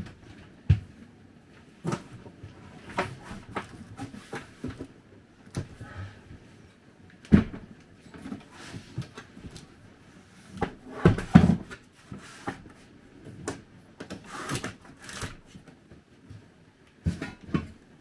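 Irregular knocks, bumps and fabric rustling from household handling in a small RV interior, as cushions and bedding are moved about. The loudest thumps come about seven and eleven seconds in, and a longer rustle comes near fifteen seconds.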